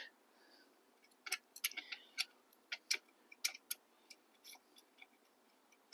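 Faint, irregular sharp clicks and light metallic taps of hand-tool work on small bolts, scattered from about a second in.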